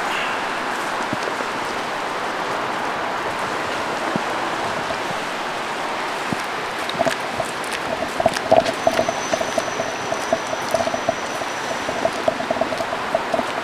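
Steady rain hiss, with a quick patter of light ticks from about seven seconds in.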